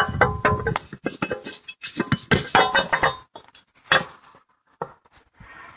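Irregular metal clinks and clatter of hand tools and bolts against a car's metal engine and transmission parts during reassembly. Busy for about three seconds, then a few scattered clinks, one sharp one about four seconds in.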